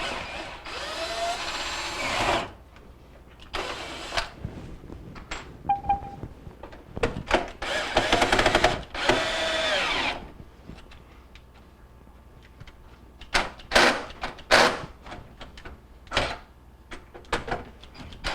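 Power drill-driver backing out the microwave's Phillips mounting screws. It runs in two spells of two to three seconds each, its motor pitch rising and falling. Near the end come a few sharp clicks and knocks.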